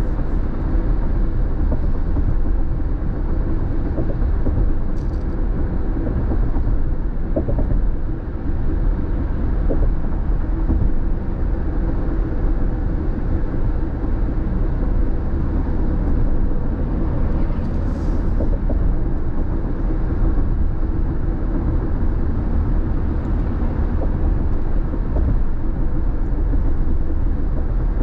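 Steady low rumble of a car driving at freeway speed, heard from inside the cabin: the continuous mix of tyre and engine noise.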